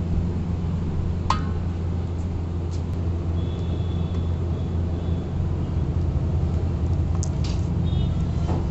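A steady low rumble with a few short metallic clinks and a brief scrape as the aluminium lid is lifted off the steaming pot.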